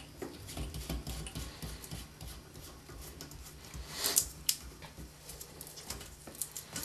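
Small handling noises of a toilet water supply line being fitted to the tank's fill-valve inlet, its coupling nut being threaded on by hand: light rubbing and scattered clicks, with a louder scrape and a couple of sharp clicks about four seconds in.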